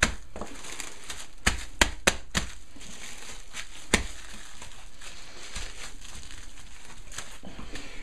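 Plastic cling film crinkling as hands wrap and press a disc of pastry dough flat against a countertop, with a handful of sharp clicks in the first four seconds.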